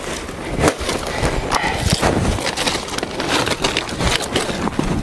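Dry banana leaves rustling and crackling as they are pulled and pushed about by hand, with many sharp snaps and crackles.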